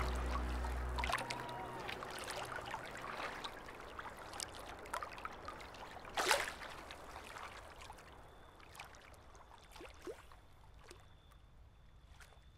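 Gentle water lapping and trickling on a pebble shore, with small scattered clicks, fading out slowly; a low sustained musical tone stops about a second in.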